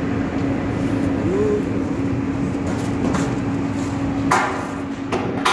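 A steady machine hum over a low rumble, typical of stud welding equipment running. About four seconds in come two sharp cracks, each with a short ringing tail.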